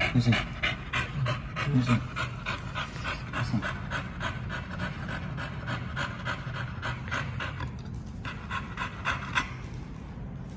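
Heavily pregnant pit bull–type dog panting fast, about three to four breaths a second, with a short break about eight seconds in and fading near the end. Heavy panting like this is one of the signs that a bitch is about to go into labour.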